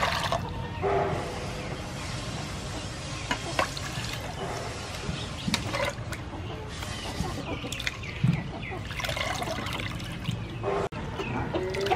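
Water splashing in a stainless steel bowl as raw shell-on shrimp are washed by hand: water poured in at the start, then swishing and sloshing with small knocks, and handfuls of shrimp lifted out dripping near the end.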